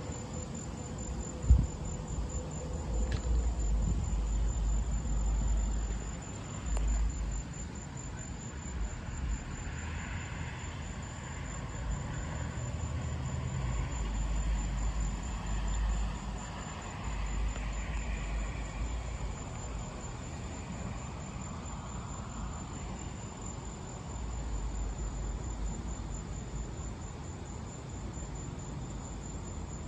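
Crickets chirping in a steady high, fast-pulsing trill. Low rumbles come and go every few seconds underneath, with a single sharp knock about a second and a half in.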